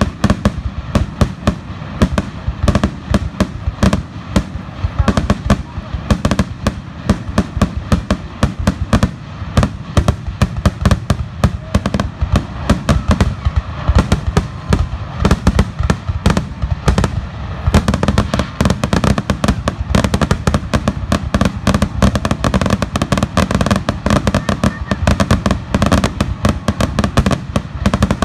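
Aerial firework shells bursting in rapid succession, several loud bangs a second over a continuous low rumble. The barrage gets denser about eighteen seconds in.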